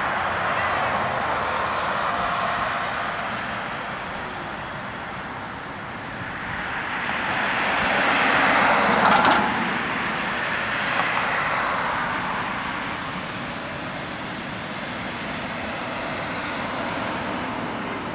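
The GE90 turbofans of a Boeing 777-200LR running at taxi power make a steady jet rush. It swells to its loudest a little before halfway through, with a brief click at the peak, then eases off.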